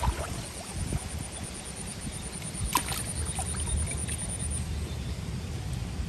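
Steady low rumble with two sharp clicks a little under halfway through.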